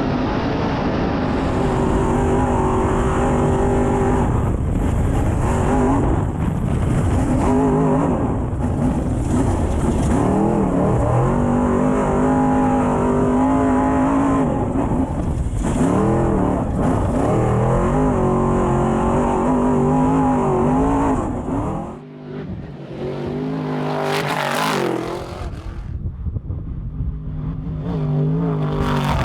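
Off-road race truck engine running hard, its pitch climbing and dropping repeatedly as it revs and shifts, over a heavy rumble. About 22 seconds in, the rumble drops away and a brief rushing sweep follows, like a vehicle passing by.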